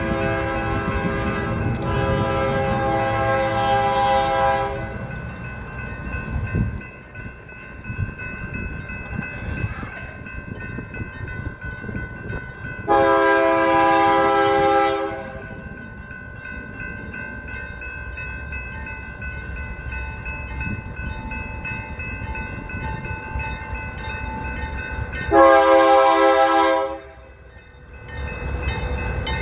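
BNSF diesel locomotive's air horn sounding three blasts, several notes at once: a long one of about five seconds, a shorter one about halfway through, and a brief one near the end. Between the blasts, the rumble of the passing freight train and a steady clickety-clack of wheels over rail joints.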